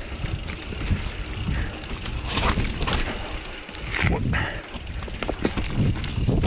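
Mountain bike riding over a rocky trail: a continuous low rumble of the tyres with frequent short knocks and clicks as the bike goes over rock and roots.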